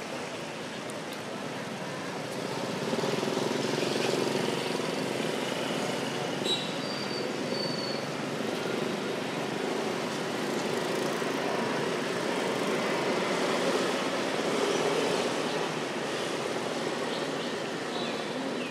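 Steady noise of road traffic going by, a little louder from about three seconds in, with a few short high chirps about seven seconds in.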